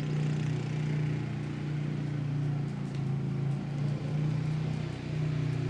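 Steady low machine hum, like a motor running, with a couple of brief dips in level.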